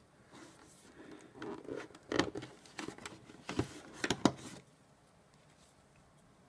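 A thin cardboard sheet of punch-out game tokens being pried and slid out of a plastic box insert: scraping and rustling with several sharp clicks and taps, stopping about two-thirds of the way through.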